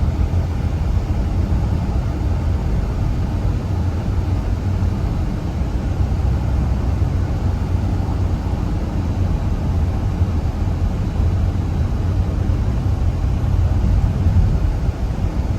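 A loud, steady low rumble with no distinct events.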